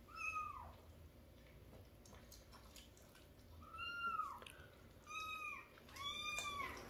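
Domestic cat meowing four times: short, high-pitched calls that rise and fall, the last three coming close together near the end.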